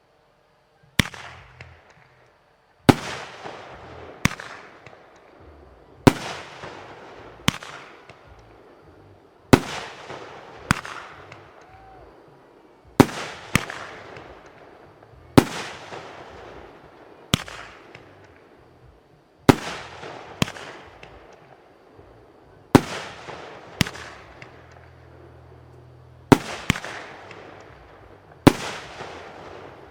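Fireworks show: about twenty sharp firework bangs, one every second or two, each followed by a fading rumble.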